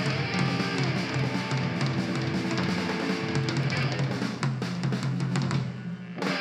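Live rock band playing, the drum kit to the fore over sustained electric guitar and bass. The band drops away briefly near the end.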